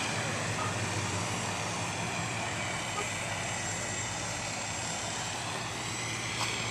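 Steady outdoor traffic noise with a low engine drone.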